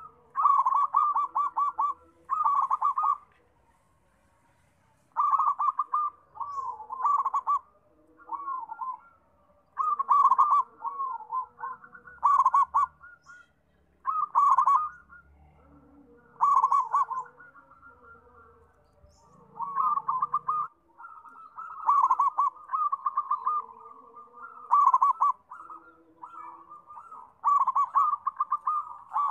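Zebra dove (perkutut) cooing: about fifteen short bursts of rapid, trilled coos, each about a second long, with brief pauses between.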